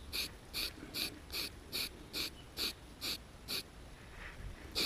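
Aerosol can of white spray primer hissing in short, quick puffs, about two a second, stopping a little over three seconds in.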